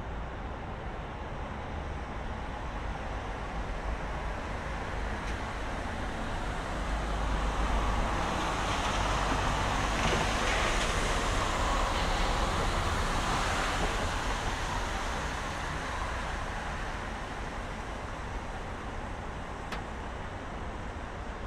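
Road traffic on a city street: a vehicle passes, its tyre and engine noise swelling over several seconds, peaking mid-way and fading away again over the steady hum of the city.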